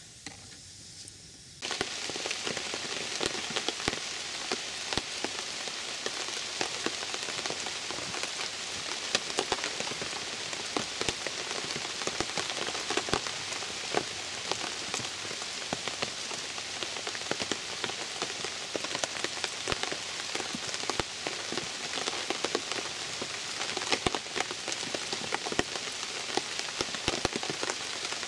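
Steady rain falling: a dense hiss of many small drops that starts suddenly about two seconds in.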